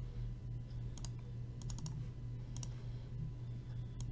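Computer mouse clicking a handful of times, sharp single clicks with a quick run of three just under two seconds in, over a steady low hum.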